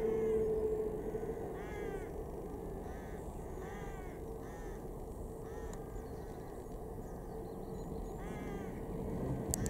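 Birds calling irregularly, short rising-and-falling calls about one a second, sometimes two overlapping, over a faint steady whine from a distant F-15 fighter jet's engines as it rolls along the runway. A sharp click near the end.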